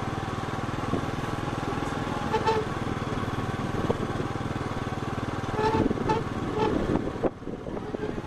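Small motorcycle engine running steadily, its firing pulses close by, dropping away about seven seconds in.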